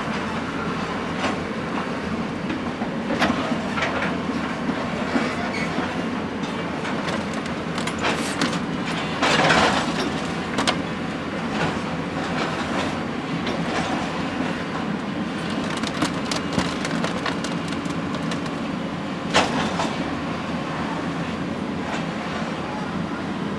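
Heavy machinery running with a steady rumble, with scattered clanks and knocks and a louder clatter about nine seconds in.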